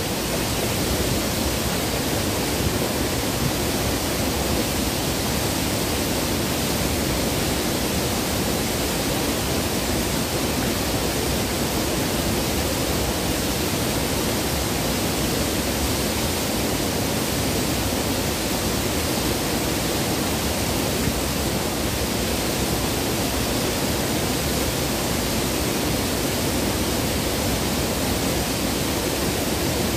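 River water rushing over rocks right beside the microphone: a loud, steady rush with no breaks.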